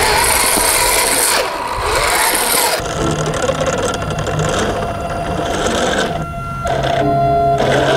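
Motor of an RC scale Toyota Hilux crawler truck running, with the pitch rising and falling as it revs over rock, and the sound changing abruptly about three seconds in.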